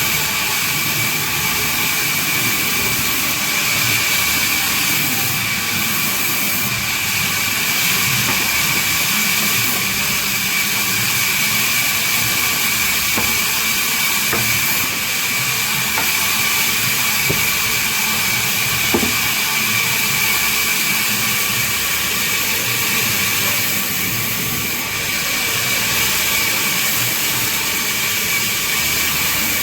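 Band saw running and cutting babool (acacia) wood: a steady hiss with a constant high whine, unbroken throughout.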